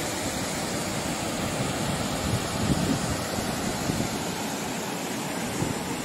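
Steady rushing roar of the Ethipothala waterfalls carrying up to the viewpoint, mixed with wind rumbling on the microphone.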